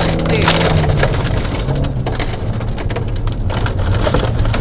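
Volvo rally car's engine running hard at speed, heard from inside the cabin, under a constant rattle of gravel stones hitting the underbody and wheel arches.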